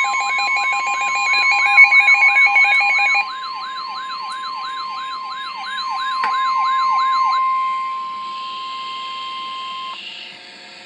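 Several electronic emergency alert tones sounding together for a flash flood warning: a steady high tone, a fast repeating siren-like sweep and a rapid beeping. The beeping stops about three seconds in, the sweep about seven seconds in, and the steady tone near the end.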